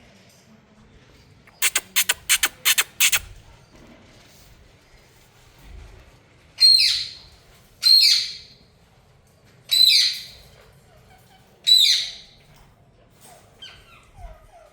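Indian ringneck parrot calling: a quick run of about seven short, harsh screeches, then four loud squawks about two seconds apart, each falling in pitch.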